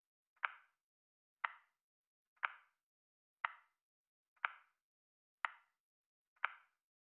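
Clock-like tick sound effect marking each second of a countdown: a short, sharp tick once a second, seven in all, each led by a faint softer click, with dead silence between the ticks.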